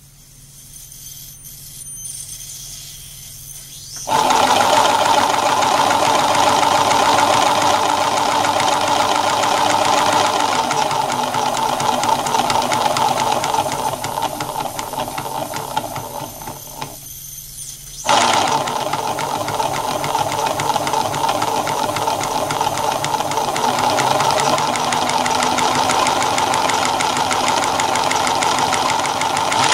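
Small 12-volt tire inflator compressor running with its cylinder head off, a loud, fast mechanical rattle from the exposed piston and cylinder. It starts abruptly about four seconds in, slows and stops for a moment a little past halfway, then starts again just as abruptly.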